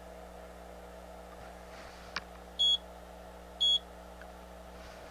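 Two short, high electronic beeps about a second apart from a digital oscilloscope's front-panel control as its volts-per-division setting is switched, with a faint click just before them. A steady low hum runs underneath.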